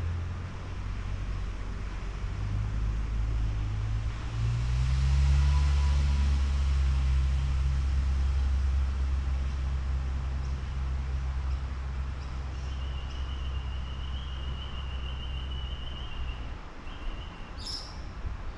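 Low, steady engine rumble that builds about four to five seconds in and cuts off abruptly about sixteen and a half seconds in. A short high chirp comes near the end.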